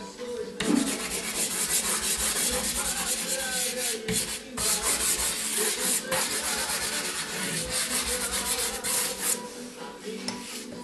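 Dry pastel rubbed across paper on a drawing board: a continuous rubbing, broken by short pauses about four and six seconds in, that stops shortly before the end.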